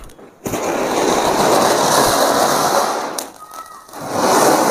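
Two anar flower-pot fireworks hissing as they spray sparks: a loud rushing hiss starts about half a second in and dies down around three seconds, then a second hiss starts about four seconds in, the two fountains burning one after the other rather than together.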